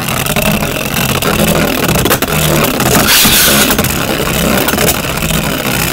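Two Beyblade Burst tops, Revive Phoenix and Regulus R3, spinning in a plastic stadium: a loud, steady whirring scrape of their tips on the plastic floor, with sharp clacks now and then as they hit each other.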